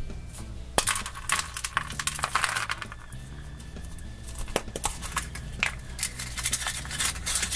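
Hollow milk-chocolate egg cracked apart by hand, then the plastic toy capsule from inside squeezed and snapped open: an irregular scatter of sharp clicks and crackles.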